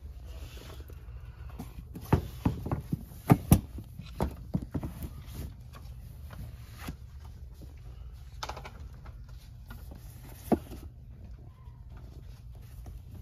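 Paperback books being handled and shifted on a store shelf: a cluster of light knocks and taps about two to five seconds in and a single knock near the end, over a steady low hum.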